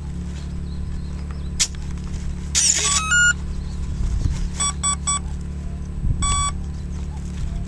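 Electronic speed controller of an electric RC model plane sounding its power-up tones as the flight battery is connected: a click, a short run of stepped tones, then three short beeps and, about a second later, one longer beep, the usual startup and arming signal. A steady low rumble runs underneath.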